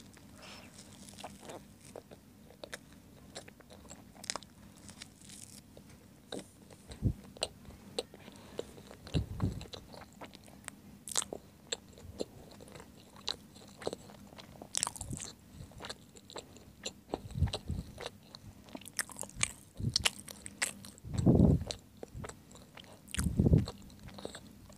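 Close-miked chewing of a soft hot dog sandwich with sausage and sauce: a steady run of small wet mouth clicks. Now and then there is a louder, dull thud, twice near the end.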